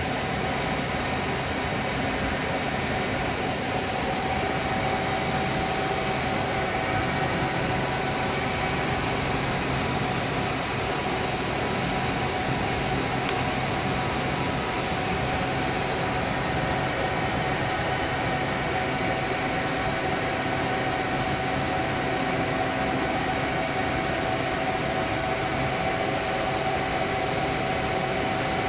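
Steady fan hum: a whirring noise with a few faint held tones in it. One faint click about halfway through.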